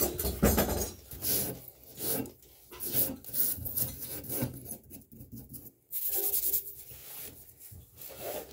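Scrubbing and rubbing on the threaded end of an iron pipe nipple to clean off calcium and rust: repeated rasping strokes, about one a second, with one longer stroke about six seconds in.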